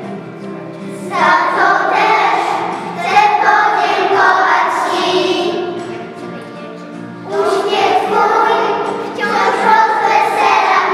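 A group of young children singing a song together in unison, in phrases with short breaths between them.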